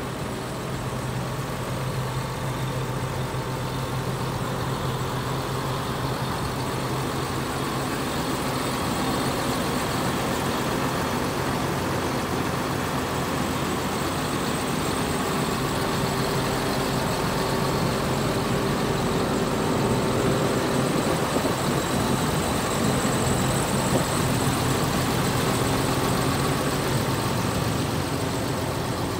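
2008 John Deere 7630 tractor's six-cylinder diesel engine idling steadily.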